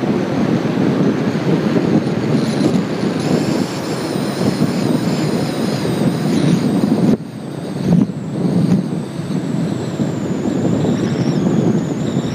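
Off-road vehicle driving fast across desert sand, engine running under heavy wind noise on the microphone. The sound drops suddenly about seven seconds in and picks up again a second later.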